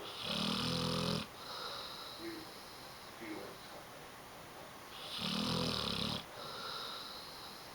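Great Dane–pit bull mix dog snoring in its sleep: two loud snores about five seconds apart, each lasting about a second and followed by a quieter breath.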